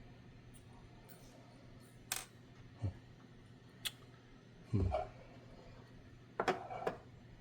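Scattered small clicks and knocks from handling wires and tools while soldering. The loudest is a dull knock about five seconds in, followed by a quick cluster of clicks about six and a half seconds in.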